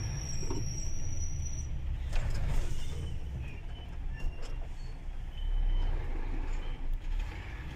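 Truck engine and road rumble heard from inside the cab while driving, steady and low, with a few sharp knocks along the way.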